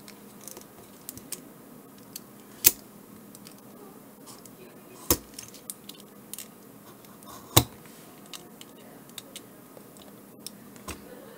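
A fine knife blade cutting along the glued seam of a small plastic battery shell: scattered small scraping ticks, with three sharp clicks about two and a half seconds apart.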